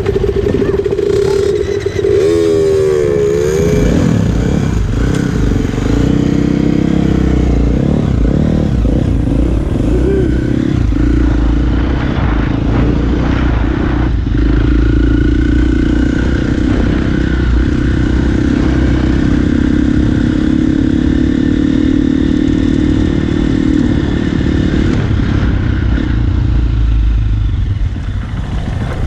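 Youth dirt bike engine revving up and down as the bike pulls away, then running at a fairly steady pitch while riding along.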